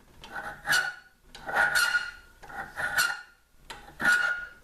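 Single-cut file being stroked across a steel pistol nose cap to smooth out its rough surface. There are about four strokes, roughly one a second, each a rasping scrape with a ringing squeal.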